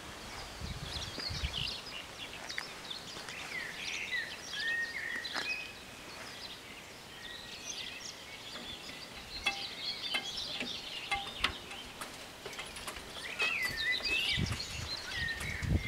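Small birds chirping and singing in short, varied phrases over steady rural background noise, with a low rumble starting near the end.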